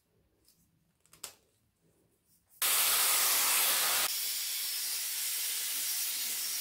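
A faint click about a second in. Then the Webeauty 5-in-1 hair styler's high-speed blower switches on suddenly with a loud rush of air, and about a second and a half later drops to a quieter steady whoosh.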